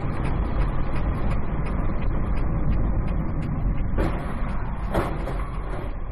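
Steady vehicle rumble and road noise, with two short knocks about four and five seconds in.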